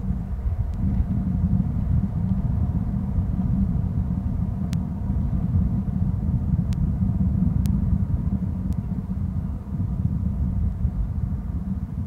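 Steady low rumbling noise with no tone in it. A few faint sharp clicks come between about five and nine seconds in.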